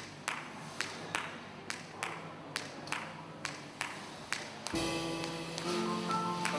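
Live band: a drummer tapping a steady beat on a cymbal, about two strokes a second. Nearly five seconds in, sustained chords of several held notes come in over it.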